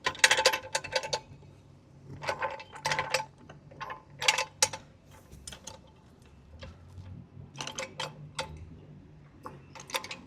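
Car jack being set and worked under the car: irregular clusters of metallic clicks and clanks, each with a short ring, in about five groups.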